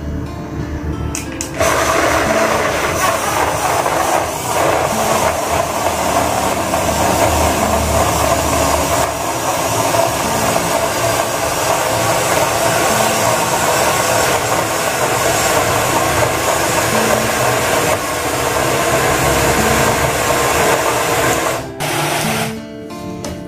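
Small portable bottle blender running steadily, blending mango pieces, milk and sugar into a milkshake. The motor starts about a second and a half in and cuts off a second or so before the end, over quiet background music.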